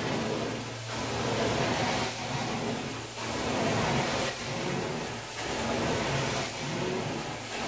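Carpet-cleaning extraction wand sucking air and water through the carpet with a steady rushing hiss. It swells and dips about once a second as the wand is pushed and pulled across the pile, over a steady low hum from the machine.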